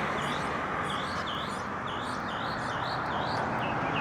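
A bird calling a rapid series of short, dipping chirps, about three a second, over steady outdoor background noise.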